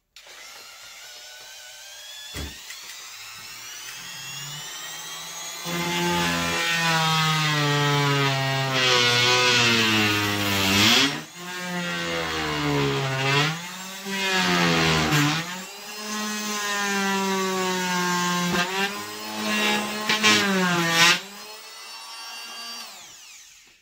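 WORX 3-amp oscillating multi-tool running, its whine rising in pitch over the first few seconds. It then turns loud and rasping as the blade cuts into a wooden baseboard, the pitch dipping and recovering several times under the load. Near the end the pitch falls and the tool winds down.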